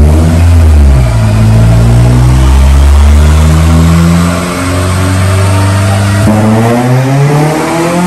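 Honda K20 inline-four engine in a Civic EG running under load on a chassis dyno. It holds steady revs, drops back about four and a half seconds in, then climbs steadily in revs from about six seconds in.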